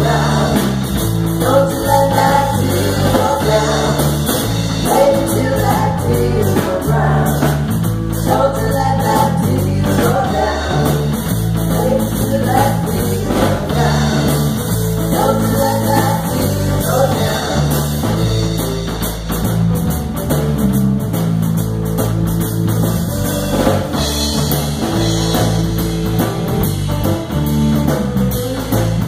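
Live rock band playing: women singing over electric guitar, bass guitar and a drum kit.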